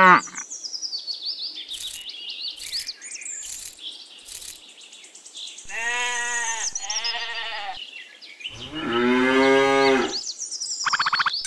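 Recorded cow moos laid over the scene: two short moos about six seconds in, then a longer, louder moo from about eight and a half to ten seconds. Birds chirp through the first half, and a short rapid bleating call comes near the end.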